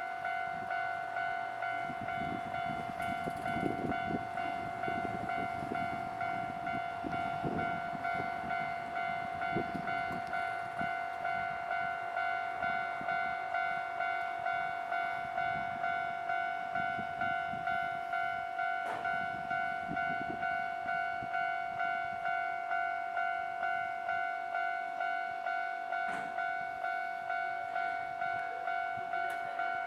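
Japanese level-crossing warning bell ringing in a steady, even rhythm. A train passes over the crossing during roughly the first third, its wheels on the rails making a rough, clattering noise, with a few sharp clicks later on.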